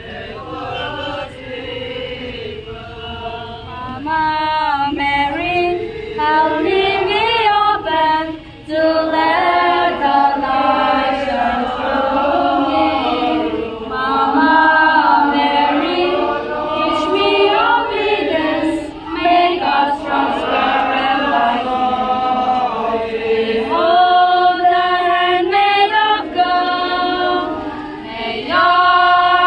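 A group of voices singing a hymn together, louder from about four seconds in.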